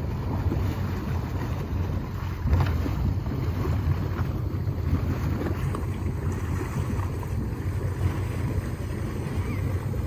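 Twin 5.3-litre LS V8 inboard engines of a Bayliner cruiser idling with a steady low rumble as the boat eases off its trailer at low speed, with wind buffeting the microphone.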